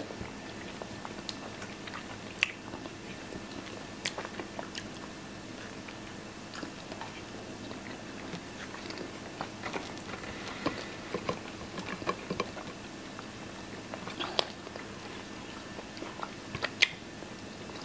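Two people eating baked beans, eggs and toast: chewing and mouth sounds, with scattered sharp clicks of metal forks against ceramic plates.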